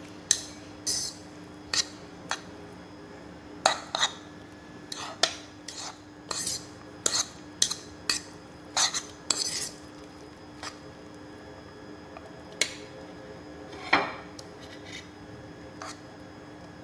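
Metal fork clinking and scraping against a bowl while tossing fried instant noodles with sausage slices. The clicks come irregularly and often for the first ten seconds or so, then thin out, with one louder scrape about fourteen seconds in.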